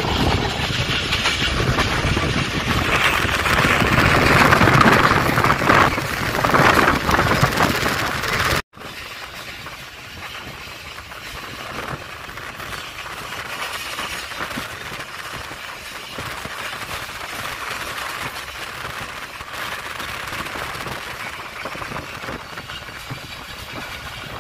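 Passenger train running along the track, heard from inside a coach at an open window: steady rumble and rattle of the wheels on the rails. It is loud for the first eight seconds or so, then after a brief cut it continues much quieter.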